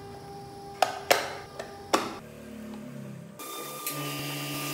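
Hinged wooden doors of a hand-carved model car clacking three times as they are handled. About three and a half seconds in, an air spray gun starts hissing steadily over a low hum as finish is sprayed.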